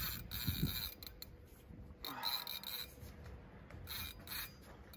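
Spinning fishing reel under heavy load: a few short rasping bursts from the reel as a big fish, taken for a bull shark, pulls and shakes on the line against a nearly locked drag.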